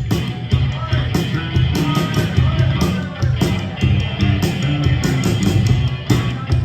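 Live rock trio playing an instrumental passage between sung lines: distorted electric guitar, electric bass and a drum kit with busy cymbals.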